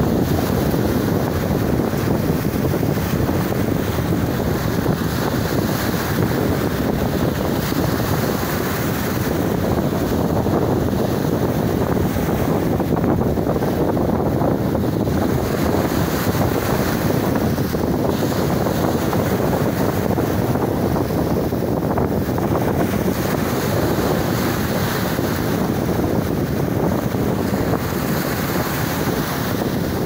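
Sea waves breaking and foam washing up the shore, with wind buffeting the microphone; a steady, dense rush with no clear pauses between waves.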